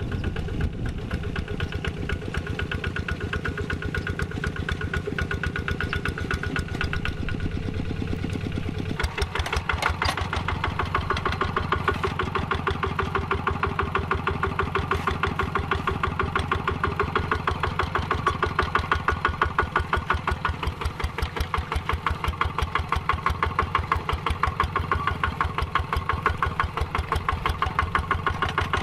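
Quick G3000 Zeva two-wheel hand tractor's single-cylinder diesel engine running with an even, rapid firing beat. About nine seconds in it gets louder and harsher as it works harder.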